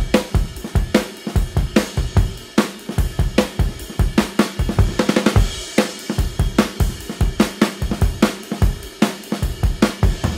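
Background music: a steady drum-kit beat with kick drum, snare and cymbals.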